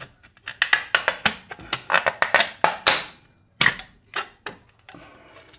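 Hammer pounding the rear brake dust shield to break it free of its spot welds: a fast, irregular run of sharp metallic strikes, about four a second, that thins out to a few single blows near the end.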